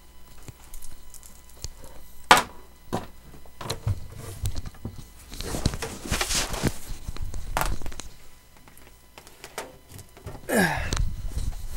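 Handling noises from a new all-in-one printer and its packaging: scattered knocks and thunks, the sharpest about two seconds in, with a stretch of rustling midway.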